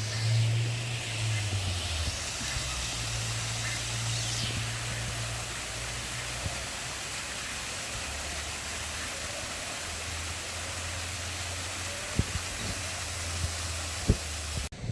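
Wind on the microphone: a steady outdoor hiss with a low rumble that comes and goes. Two short sharp knocks come near the end.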